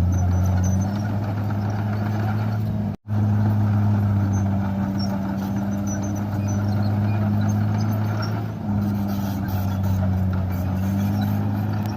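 Komatsu bulldozer's diesel engine running steadily with a deep, even drone. It cuts out for an instant about three seconds in, then comes straight back.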